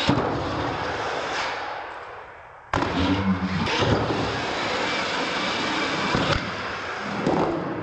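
Radio-controlled monster truck driving hard over ramps: a steady rush of motor and tyre noise, broken by sharp knocks as it hits the ramps and lands. The sound drops away and then jumps back abruptly about two and a half seconds in.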